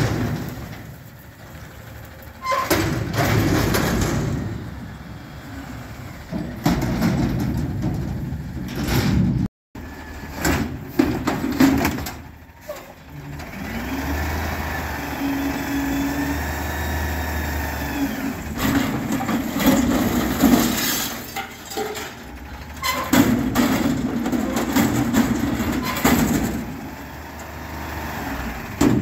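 Front-loader garbage truck working a dumpster with its diesel engine and hydraulic arms. The engine revs up and down, loose metal bangs and clanks again and again, and a hydraulic whine rises and falls about halfway through.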